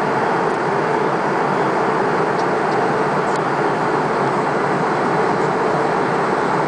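Steady airliner cabin noise in flight: the even rush of the jet engines and the air streaming past the fuselage, heard from inside the cabin.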